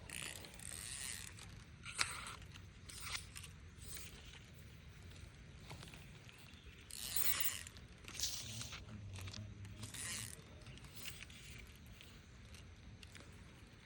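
Fishing reel being cranked in a series of short bursts, its gears giving a rattling, ratcheting whir, with a sharp click about two seconds in.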